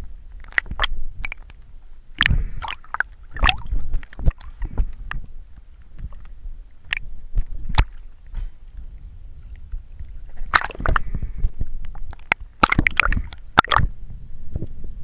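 Water sloshing and gurgling around a diver's waterproof action camera, with irregular clicks and knocks. Two denser clusters of splashy bursts come about ten and thirteen seconds in.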